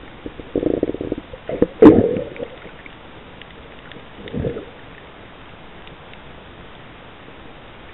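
Muffled water sounds picked up underwater while snorkelling: a rapid crackle of bubbling about half a second in, a louder gurgling surge just before two seconds, and a shorter gurgle at about four and a half seconds, over a steady hiss.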